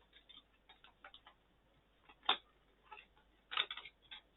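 Trading cards and paper inserts being handled: small irregular clicks and taps, with a louder tap a little over two seconds in and a short cluster of them near the end.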